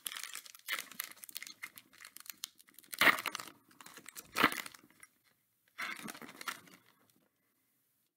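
A foil trading-card pack wrapper being torn open and crinkled by hand, with two louder rips about three and four and a half seconds in; the rustling stops about seven seconds in.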